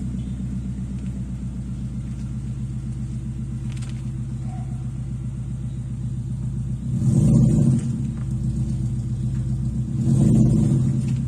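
Ford Fiesta engine breathing through unequal-length headers and a 2.5-inch open pipe with no muffler. It idles steadily, then is revved in two short blips, about seven and ten seconds in.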